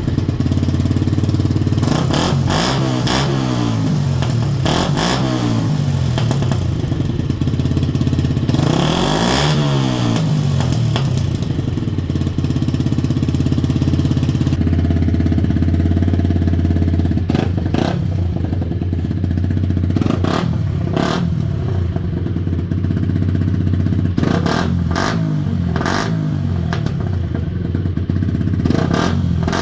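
Yamaha YZF-R125 / MT-125 single-cylinder 125 cc four-stroke engine idling through a test exhaust, blipped repeatedly with quick rises and falls in pitch. There is one fuller rev about ten seconds in, a louder held stretch around the middle, and a cluster of short blips near the end.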